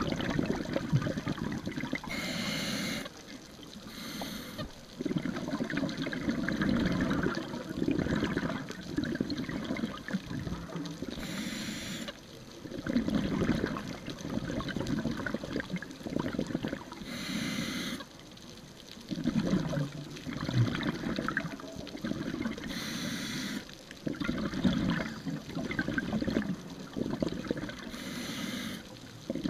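Scuba diver breathing through a regulator underwater: five short hissing inhales several seconds apart, each followed by a longer stretch of low bubbling as exhaled air escapes.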